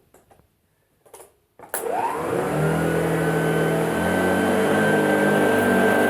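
A few faint clicks, then the 1974 Hoover Junior Dirt Searcher upright vacuum cleaner is switched on with a click just under two seconds in; its motor whines quickly up to speed and then runs steadily.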